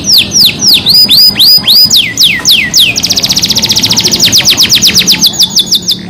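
Domestic canary singing: a run of repeated downward-sweeping notes, about four a second, then about halfway through a switch to a fast, high trill.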